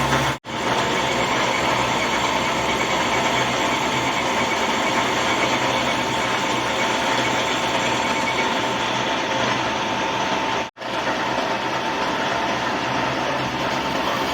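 An electric machine running steadily at constant speed with a steady whine, part of metalworking on a motor flange. The sound drops out completely twice, briefly, near the start and about ten seconds in.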